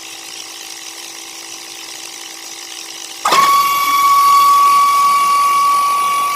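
Small electric motor humming faintly, then switched to a much louder, steady high whine about three seconds in.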